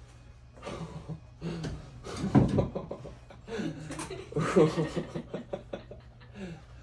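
A person chuckling and breathing, with a few unclear voice sounds coming in short spells.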